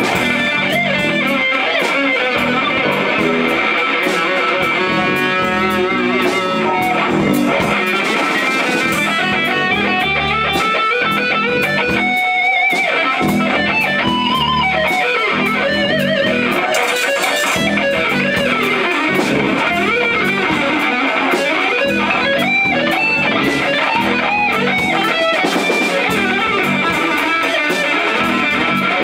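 Amplified electric guitar played live and loud, a long passage of quickly changing notes with sharp picked attacks.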